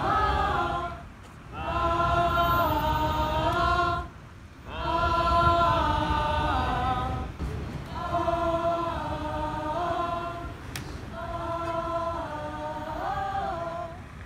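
A group of voices singing held notes together in chords, without instruments, in phrases of about two to three seconds separated by short breaks. A low steady rumble runs underneath.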